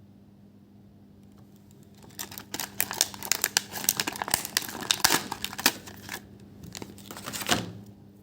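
Packaging crinkling and rustling as it is handled and opened: a dense, crackly run of noise that starts about two seconds in and stops shortly before the end.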